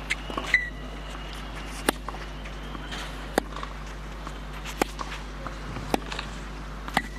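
A tennis rally on clay: racquet strings striking the ball about six times, each stroke a sharp pop about a second and a half after the last, over the steady hush of a stadium crowd.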